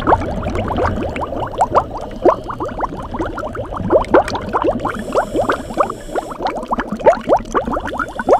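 Scuba diver's exhaled air bubbling out of the regulator underwater: a rapid, irregular stream of gurgling bubble pops, with a brief high hiss about five seconds in.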